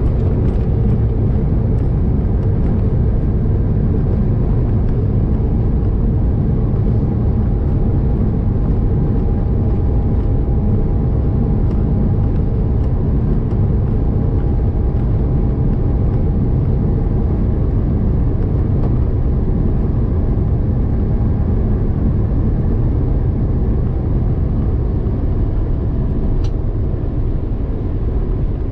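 Airbus A380 cabin noise during the landing rollout: a loud, steady low rumble of the engines, rushing air and wheels on the runway. A faint steady whine runs under it for a while in the middle.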